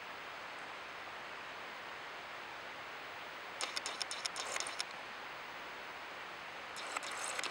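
Steady rushing of the Daisen Falls waterfall. Two short bursts of crackling rustle break in, about halfway through and near the end.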